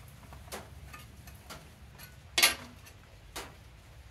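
Scattered light clicks and knocks as the metal control cover plate of a mini excavator is handled and worked up over the rubber joystick boots, the loudest knock about halfway through.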